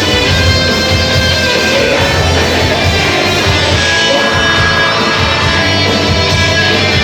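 Heavy metal band playing live: electric guitars and bass held at a steady, loud level.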